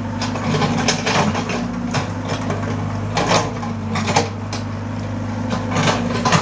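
A heavy machine's engine running steadily, with repeated metallic clanks and knocks over it.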